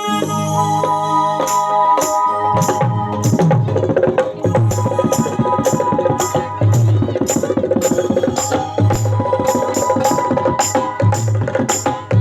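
Live devotional band music played through a PA system during a sound check. Held instrument tones open it, and from about a second and a half in a steady rhythm of hand drums and bright metallic strikes, about two a second, comes in.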